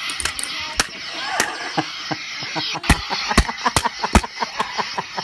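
Toy lightsaber swung and knocked about: a steady hiss runs under a rapid series of sharp clacks, with a few heavier thumps around three to four seconds in.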